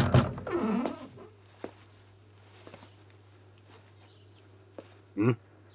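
Wooden door creaking open with a wavering, bending squeal, then a few soft footsteps and a second short creak about five seconds in.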